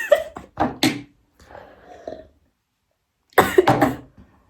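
A person coughing in short fits, several coughs in the first second and a louder burst of coughs about three and a half seconds in, set off by the heat of the raw chillies just eaten.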